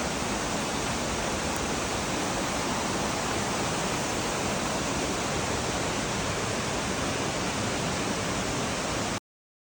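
Waterfall rushing steadily, an even hiss of falling water, which cuts off suddenly near the end.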